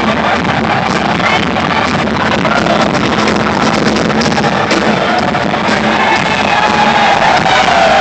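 Live rock band playing at a concert, heard through a phone's microphone.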